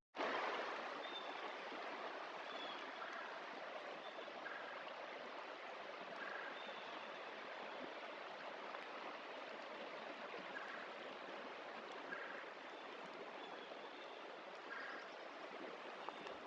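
Steady, soft hiss of water falling or running, with scattered faint, short, high bird chirps.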